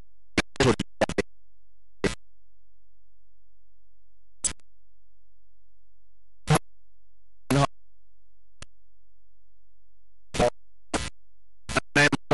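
Broken-up, stuttering audio: about a dozen short clipped snippets of sound, each cut off abruptly, with dead silence between them, as when a live audio feed drops out.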